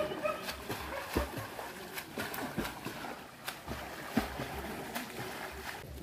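Water splashing and sloshing from swimming in a natural creek-fed pool, with irregular small splashes.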